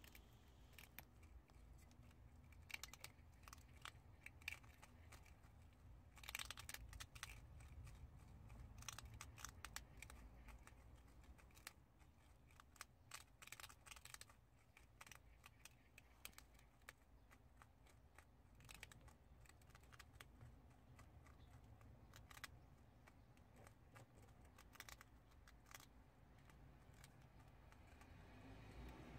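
Faint, crisp clicking and crunching of two prairie dogs gnawing seeds off a seed-topped treat, in irregular flurries.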